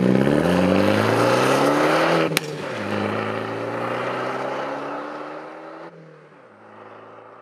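Alfa Romeo MiTo's engine revving and accelerating, its pitch climbing. About two and a half seconds in there is a sharp crack, the revs drop and then climb again as it changes up a gear. Near the end it falls quieter and lower.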